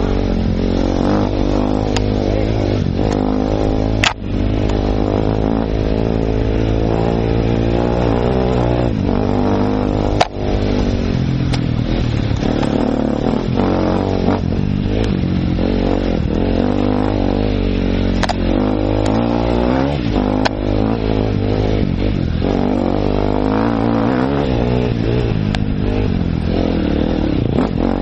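Enduro dirt bike engine, heard from on board, revving up and down over and over as it rides a rough trail. There are sharp knocks about four and ten seconds in.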